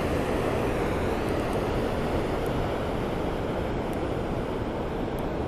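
Steady rushing of river water pouring over a concrete weir and churning below it, an even noise with no breaks.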